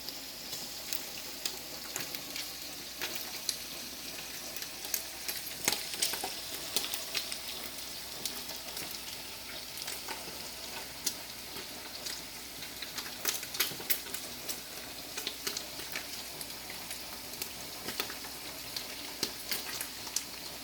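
Cubed pork frying in hot vegetable oil in a pot: a steady sizzle with irregular crackling pops.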